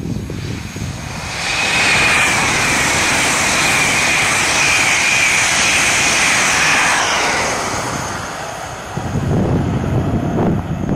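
An LNER Class 801 Azuma electric train passes at high speed: a loud rush of wheels on rail and air, with a high steady whine, builds about a second and a half in, holds, then fades away. Wind buffets the microphone near the end.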